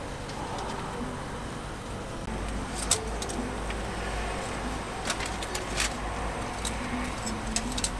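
Metal tongs clicking sharply a few times against cast-iron fish-bread molds and a wire rack while finished bungeoppang are lifted out, over a steady low background rumble.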